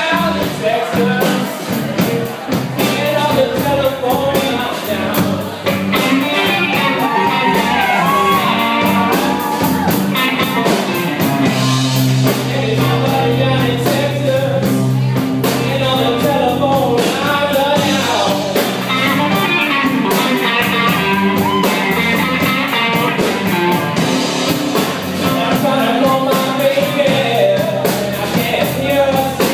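Live rock band playing: a male lead singer sings over two electric guitars and a drum kit.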